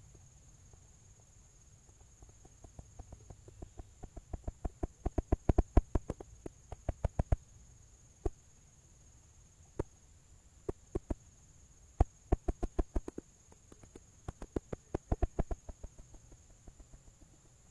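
A series of low drumming thumps. They start about two seconds in, speed up and grow louder into a fast run that stops abruptly, then return as single thumps and short bursts that fade near the end. The uploader presents them as Bigfoot drumming.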